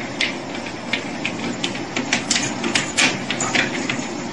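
Motorised treadmill running, a steady whir from the motor and belt, with irregular clicks and taps from a dog's paws stepping on the moving belt.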